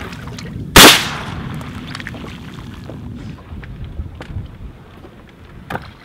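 A single close shotgun shot about a second in, loud and sharp, dying away over the next half second. Beneath it a boat motor hums low and steady for the first few seconds, and a smaller sharp click comes near the end.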